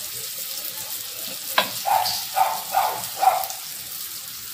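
Fish pieces sizzling steadily in oil on a hot flat tawa griddle. There is a sharp clink about a second and a half in, then a few louder spurts over the next two seconds as more oil is poured onto the hot pan.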